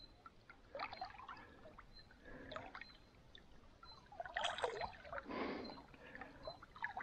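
Small irregular splashes and sloshing of water from a hooked chub struggling at the surface while being played on a fly line, the loudest splashing about four and a half seconds in.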